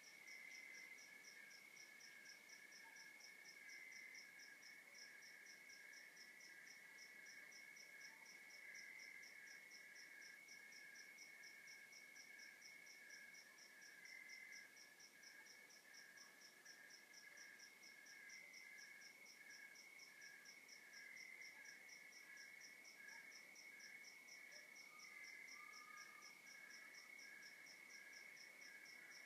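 Faint night chorus of crickets: one high chirp repeating evenly about two to three times a second over a steady lower trill from other insects.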